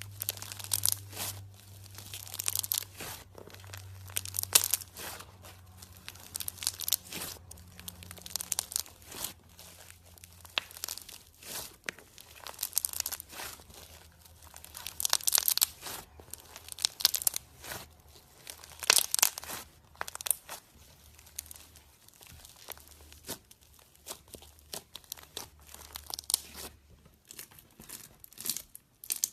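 Slime being squeezed and stretched by hand, giving irregular bursts of sticky crackling and popping.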